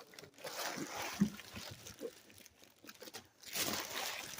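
Packing material and cardboard rustling and crinkling, with a few light knocks, as a boxed statue is handled and lifted out of a shipping box.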